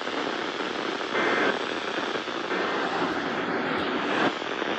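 Steady hiss of radio static from a weather-alert radio receiver with no speech, changing abruptly a little over four seconds in.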